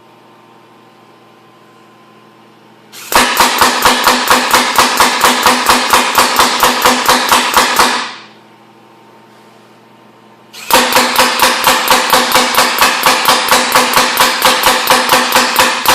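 Large gatling gun prop firing two bursts of rapid, evenly spaced bangs, about six a second, each burst lasting about five seconds with a pause between.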